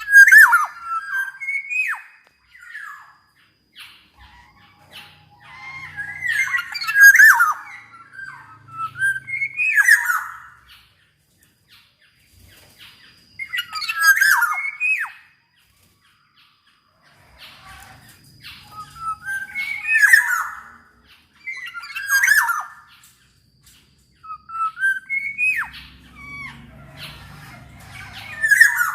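Black-naped oriole (kepodang) singing: short phrases of loud, fluty whistles mixed with harsh, rasping notes, repeated in bursts every few seconds.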